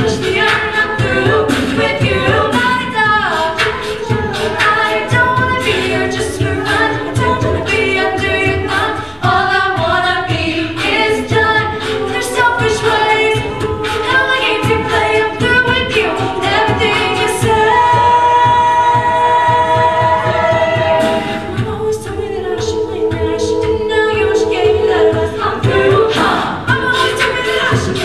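Mixed a cappella vocal group of mostly female singers, amplified through handheld microphones, singing an up-tempo song in close harmony over a vocal-percussion beat. Around two thirds of the way through, the beat drops out for a few seconds while the voices hold one long chord, then the beat comes back in.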